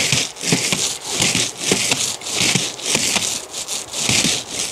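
Paint roller being rolled over fibre-cement Hardiplank weatherboards, a hiss swelling with each up-and-down stroke, about two strokes a second.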